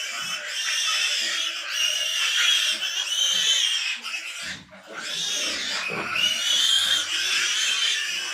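Pigs squealing in long, high-pitched, wavering cries, with a short pause about halfway through.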